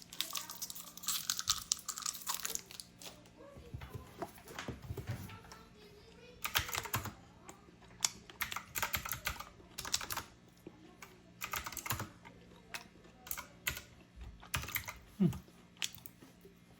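Typewriter-style keyboard with round keycaps being typed on: sharp key clicks in irregular bursts, with short pauses between runs of keystrokes.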